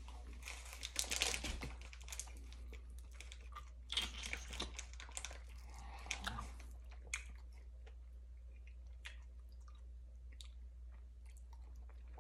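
A man's quiet mouth noises: soft wet clicks and crackles in a few short spells, fading out after about seven seconds, over a steady low hum.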